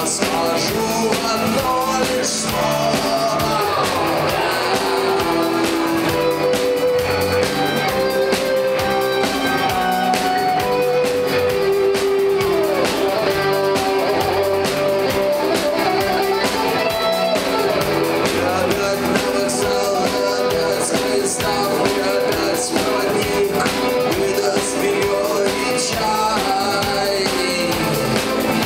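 Rock band playing live: guitars and drum kit, with long held notes running through the middle.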